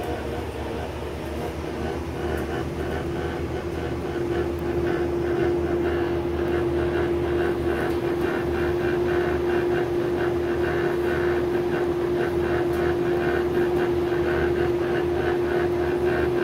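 Interior of a natural-gas New Flyer C40LF transit bus with the drivetrain running. A steady, even-pitched whine grows louder a few seconds in and then holds.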